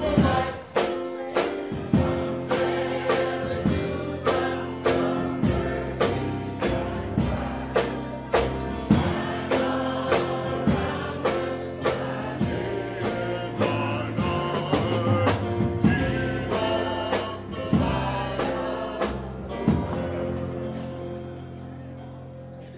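Gospel choir singing with a band and drum kit, keeping a steady beat; the music fades out near the end.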